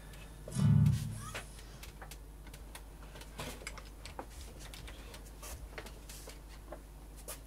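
Scattered light clicks and taps as a nylon-string guitar is handled before playing, with one short low note or thump about half a second in.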